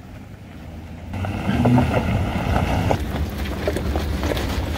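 Pickup truck towing a bass boat on a trailer rolling past over gravel: a low engine rumble with tires crunching on loose stones, getting louder about a second in as it nears.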